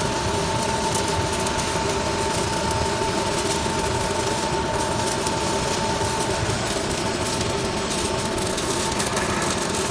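Robotic arc welding in progress: a steady crackling hiss from the arc with a high whine from the welding equipment, the whine dropping out about six and a half seconds in and returning near the end.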